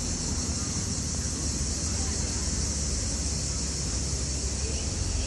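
Outdoor street ambience: wind buffeting the microphone as a low, uneven rumble, under a steady high hiss.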